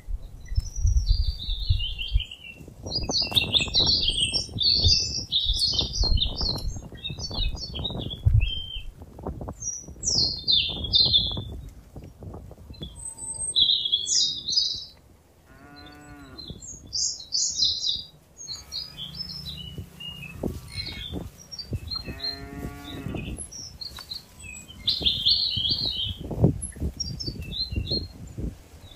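Cattle grazing close by, tearing and chewing grass in quick crunching bites, with a cow mooing twice around the middle. Small birds chirp throughout.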